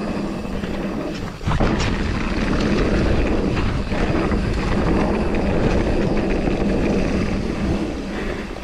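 Mountain bike descending a dirt trail: wind buffeting the action camera's microphone over the rumble of knobby tyres rolling on packed dirt, a steady noise with a brief lull about a second and a half in.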